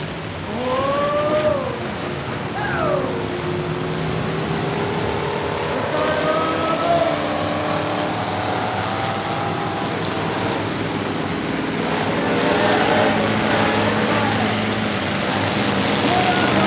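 Several race cars and pickups running at once, their engines revving up and down over a steady low rumble of the field.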